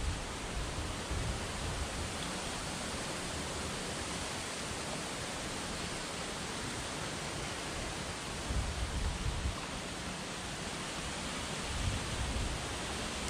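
Steady rushing hiss of a shallow river's flowing water, with a few brief low rumbles about two-thirds of the way through and again near the end.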